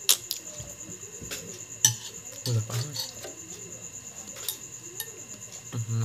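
A metal spoon clinks against a bowl of iced fruit soup several times, the sharpest clink about two seconds in. Underneath, crickets chirp in a steady, high, evenly pulsing trill.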